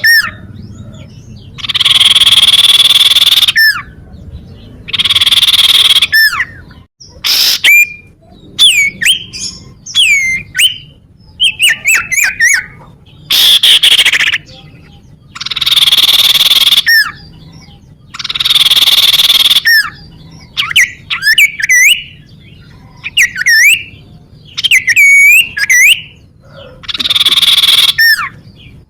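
Cipow (common iora) song played as a lure recording. Loud, harsh, buzzy phrases about two seconds long repeat roughly every three seconds, with quick whistled notes sliding up and down in pitch between them.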